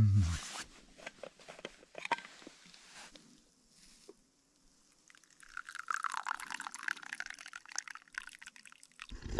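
A drink is poured from a stainless steel thermos into a small cup, a splashing stream lasting about three seconds in the second half. It follows a few light clicks as the flask and cup are handled.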